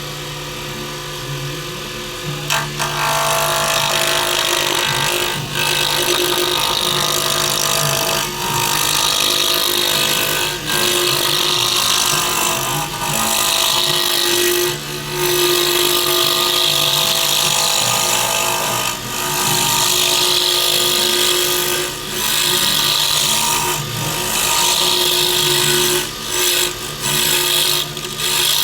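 A power tool's motor hums steadily, then about two and a half seconds in a cutter bites into a dyed, stabilized burl pen blank, giving a loud harsh cutting noise in passes of one to two seconds with brief breaks, and quicker short touches near the end.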